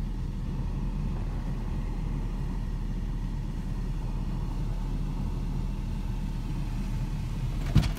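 Car engine idling, a steady low rumble heard from inside the cabin, with a single sharp knock near the end.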